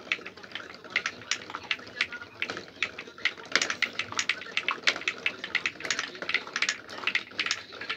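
Glass marbles rolling down a wooden marble run, clacking irregularly against the slanted wooden baffles in a quick, dense string of clicks that thickens about three seconds in.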